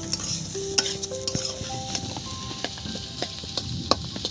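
Spatula stirring and scraping spiced potatoes in a hot pan, the food sizzling, with scattered clicks of the spatula against the pan.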